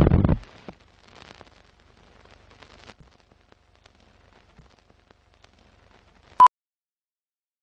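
Film countdown-leader sound effects: a loud low boom at the start that dies away within half a second, then faint crackle and clicks like old film running through a projector. About six and a half seconds in comes one short, loud high beep, the countdown's sync beep.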